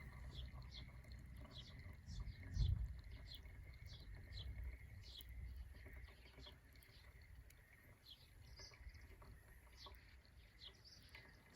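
Small birds chirping repeatedly, short high calls about two or three a second, over a low rumble, with one low thump about two and a half seconds in.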